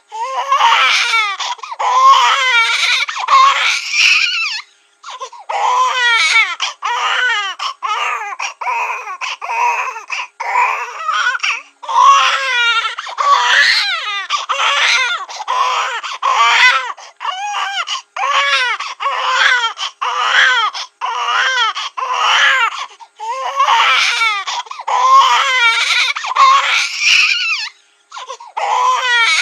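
Cartoon baby-crying sound effect: a high-pitched infant wailing in short cries one after another, pausing briefly about five seconds in and again near the end.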